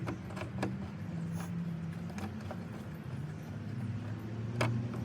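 Low, steady rumble of a running vehicle engine with light clicks and taps of handled tools or parts, and one sharp click near the end.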